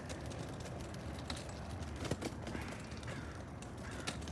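Footsteps while walking on a sidewalk: a few irregular taps over a steady low rumble.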